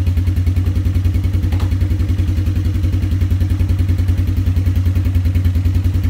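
Small ATV engine idling steadily with a fast, even putter. There is one light click about a second and a half in.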